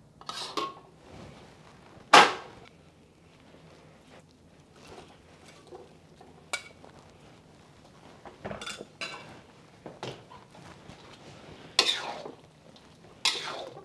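Metal utensils knocking and scraping against a steel wok as fried chicken pieces are tipped into the sauce and moved around: scattered clinks, the loudest a sharp clank about two seconds in, with more clinks near the end.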